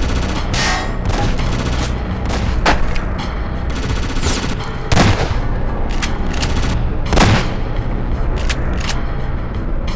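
Dubbed-in gunfire sound effects: irregular single shots and short bursts over steady background music, with louder bangs about five and seven seconds in.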